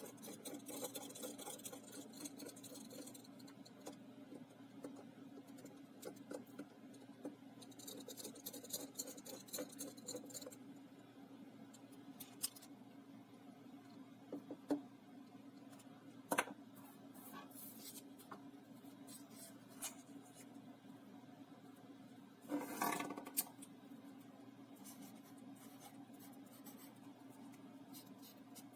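Small electronic parts of a watch phone being handled and fitted by hand: light scraping in two stretches, a few sharp clicks, and a louder burst of scraping about three-quarters of the way through, over a steady low hum.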